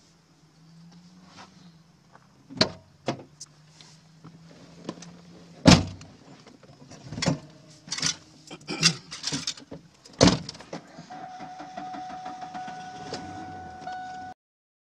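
Sharp clicks and knocks inside a Ford Ranger pickup's cab, the two loudest about six and ten seconds in, followed by a steady high tone from about eleven seconds that cuts off abruptly near the end.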